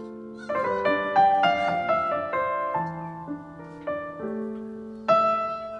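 Background piano music: a gentle melody of single notes and chords, with a louder chord near the end.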